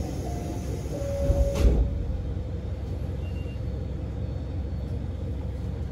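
A diesel railcar's two-tone door chime sounds twice, ending with the hiss and thump of the doors closing about a second and a half in; after that the engine runs with a steady low rumble.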